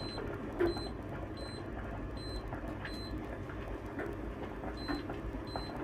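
Short, high electronic beeps from a digital kitchen timer as its buttons are pressed to set it, one beep per press, about every 0.7 seconds, with a pause of nearly two seconds before the last two. Under them runs a steady low background noise.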